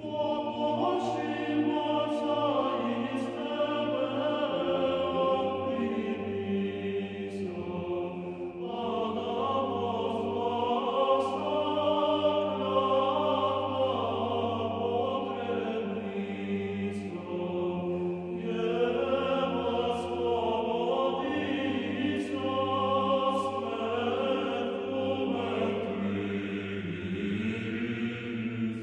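Choir singing a slow chant: several voices holding long notes that change pitch in steps, over a steady low bass note.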